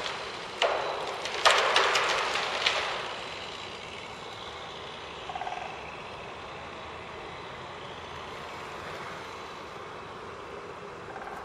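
Irregular crackling and knocking for the first three seconds, then a steady haze of distant city traffic noise.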